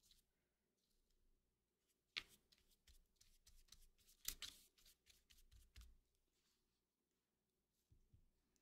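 Faint scratchy strokes of a flat paintbrush dabbing and brushing watercolour across cardstock, in a run from about two to six seconds in; otherwise near silence.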